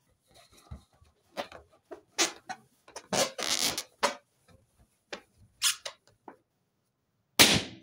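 Hands rubbing and squeezing an inflated latex balloon, its skin squeaking and scrunching in irregular short bursts, then the balloon bursts with one loud pop near the end.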